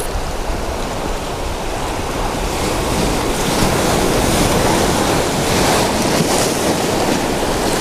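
Surf washing over lava rocks, with wind buffeting the microphone.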